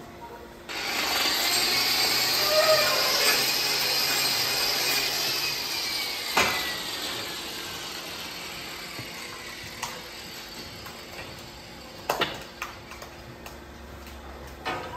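Hand-held angle grinder with a hoof-trimming disc starting up about a second in and grinding on a cow's hoof. It then slowly winds down with a falling whine after about six seconds, with a sharp knock as it slows.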